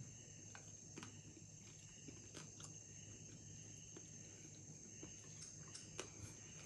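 Near silence: a few faint, scattered clicks of someone chewing noodles, over a steady faint high-pitched hiss of background noise.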